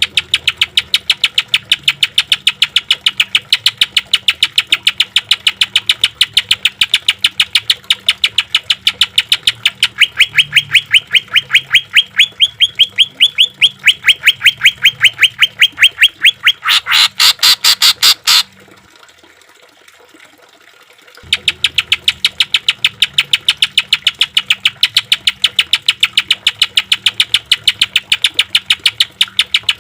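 Cucak ijo (greater green leafbird) singing a fast, unbroken series of sharp repeated notes, the rough rapid-fire 'tembakan' phrase. It turns harsher and louder just before a pause of about three seconds about two-thirds of the way in, then starts again at the same pace.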